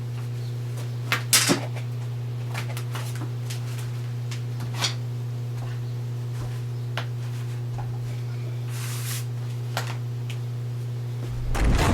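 A steady low hum with scattered light clicks and knocks over it; music comes in at the very end.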